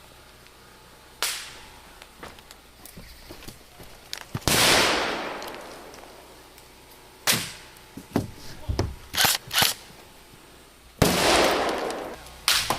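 Scattered airsoft gunfire: sharp single shots and short strings of shots, with two louder ones that die away over about a second.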